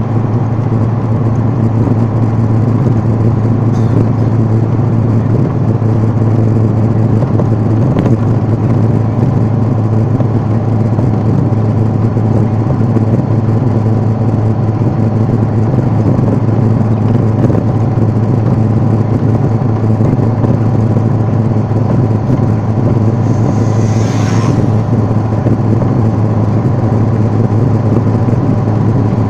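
Steady drone of engine and tyre noise heard from inside a moving vehicle, with a strong low hum. A brief high-pitched sound comes near the end.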